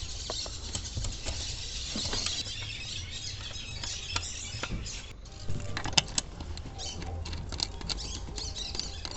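Light scraping and scattered small metallic clicks from a car seat's mounting nuts and bolts being handled and fitted as the seat is bolted back in, over a low steady hum.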